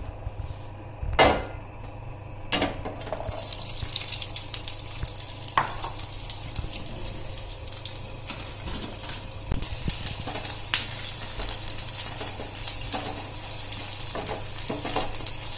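Large-cut onion pieces sizzling as they fry in hot oil in a pan. Two sharp knocks of a utensil come first, the louder about a second in, and the sizzling starts about three seconds in, with light clinks of the spatula as the onions are tossed.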